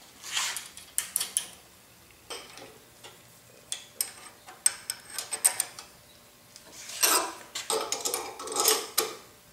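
Steel parts clinking, tapping and scraping as a gear puller's arms and threaded rods are set against a motor stator and tightened by hand. Scattered sharp clicks, with longer scraping stretches about seven and eight and a half seconds in.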